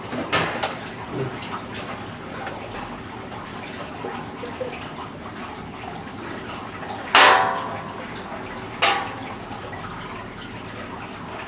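Sugar water running and splashing steadily in a 55-gallon barrel syrup mixer. A few knocks on the barrel cut in, the loudest two about seven and nine seconds in, each with a short ring.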